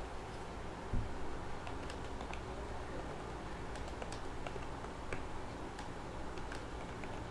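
Computer keyboard being typed on at a steady touch-typing pace, a quick run of irregular key clicks during a one-minute typing-speed test. There is one louder low thump about a second in, over a faint steady low hum.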